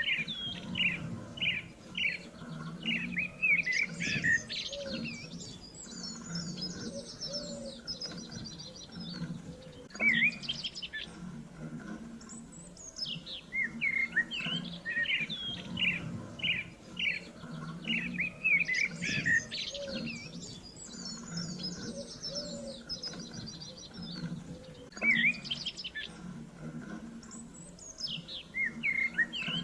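Small birds chirping and trilling, quick high chirps mixed with buzzy trills over a low steady background. The same stretch of calls repeats about every fifteen seconds, a looped recording.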